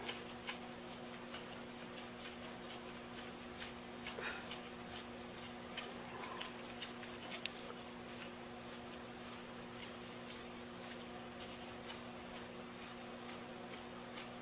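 Faint handling sounds of gloved hands unscrewing the lock nut from a rifle scope tube: light scratchy rubs and small ticks throughout, over a steady low hum.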